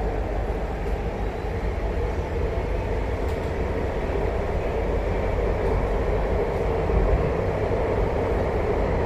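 Steady running noise of an MTR Tuen Ma Line China-made electric train, heard from inside the passenger car: a continuous rumble of wheels on rail that grows slightly louder about halfway through.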